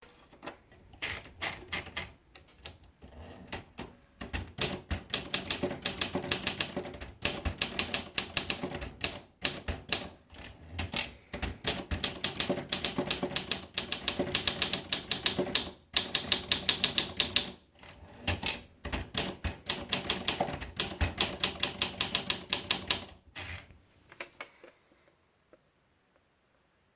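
Olympia SM2 portable manual typewriter being typed on: quick runs of keystrokes in bursts with short pauses between them. The typing stops near the end.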